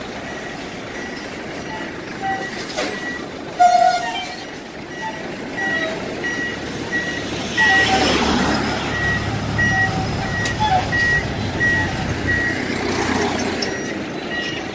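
Trucks driving past on a road, with the traffic noise swelling as one passes about eight seconds in. Through most of it an electronic beeper sounds about twice a second, and a short horn toot comes about four seconds in.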